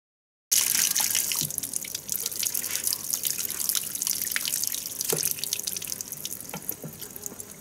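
Water running from a tap and splashing into a sink as peeled roots are rinsed under it, starting suddenly about half a second in and slowly fading, with scattered light knocks and clicks.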